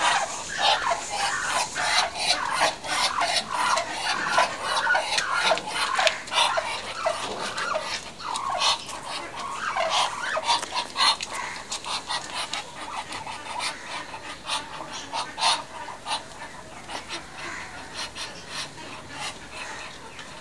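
Muscovy ducks giving short, breathy, raspy hisses in quick succession, busiest at first and thinning out through the second half.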